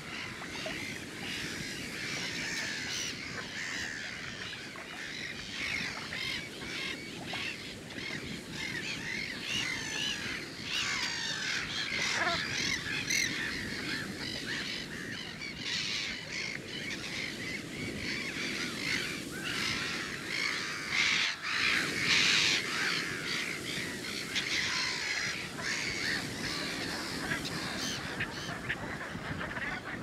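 A flock of brent geese calling, many short overlapping calls without a break, swelling briefly about two-thirds of the way through, over a low steady background rush.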